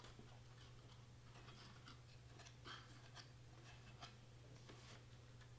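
Near silence with faint, scattered rustles and light taps of a folded cardstock 3D letter being handled and pressed, over a steady low hum.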